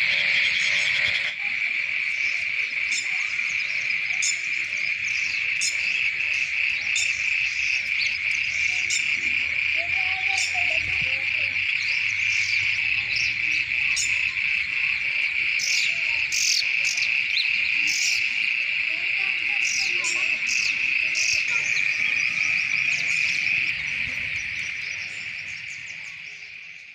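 Loud, steady insect chorus: a dense high-pitched trill that never lets up, with scattered short high chirps over it. It fades out near the end.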